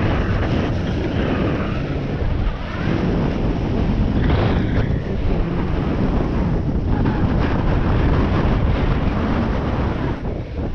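Wind rushing over an action camera's microphone while snowboarding downhill, with the board's edges scraping and hissing over groomed snow; a louder scrape about four seconds in.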